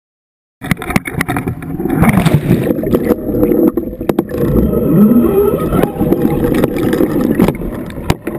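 Water rushing and sloshing, muffled through a waterproof camera housing as it goes over the side of a boat and under the surface, with many sharp knocks of the housing being handled. It starts suddenly about half a second in.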